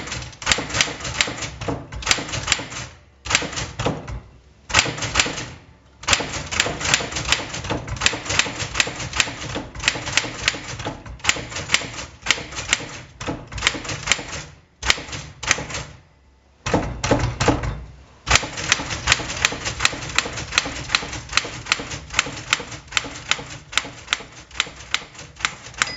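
Smith Corona Sterling manual typewriter being typed on: fast runs of sharp key and typebar strikes, several a second, broken by brief pauses. About two-thirds of the way through, a longer low rumble of the machine lasts about a second.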